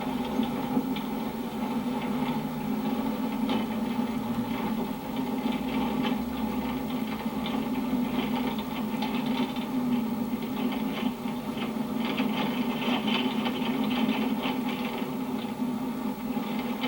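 Car engine and road noise heard from inside the cabin while driving, a steady hum with scattered light rattles and crackles.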